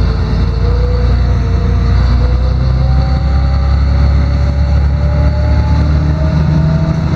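LiAZ-6213.22 articulated city bus under way, heard from the passenger cabin: a steady heavy diesel rumble with a thin whine from the drivetrain that drifts slowly upward in pitch.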